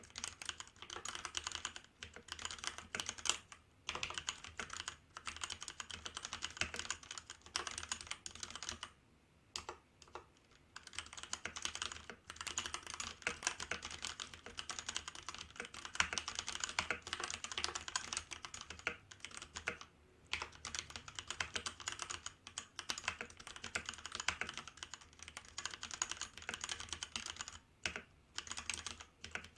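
Typing on a Hansung GO187 mechanical keyboard with Kailh Red linear switches: fast, continuous key clacks, broken by a pause of about a second and a half roughly a third of the way in and a few shorter breaks.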